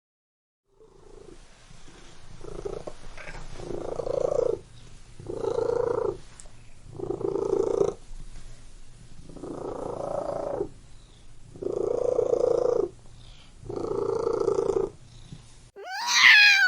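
Domestic cat purring close up, in a steady rhythm of about six loud breath cycles, each swelling and dropping off. A loud meow comes near the end.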